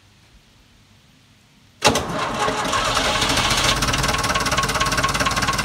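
1959 Nuffield Universal 4 tractor's four-cylinder engine starting: it fires up suddenly just under two seconds in and settles at once into a steady idle.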